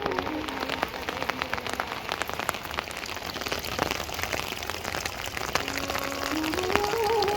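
Rain falling, with many separate drops striking close by over a steady hiss of rain.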